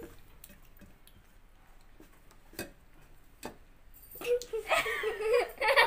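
Quiet table sounds with a couple of faint clicks, then laughter and giggling break out about four seconds in and grow louder.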